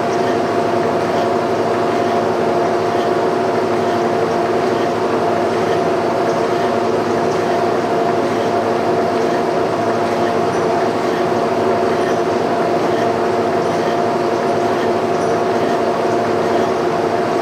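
Boring rig running steadily as the boring bar cuts a worn bore in a trailer suspension frame: an even mechanical hum with several held tones that does not change.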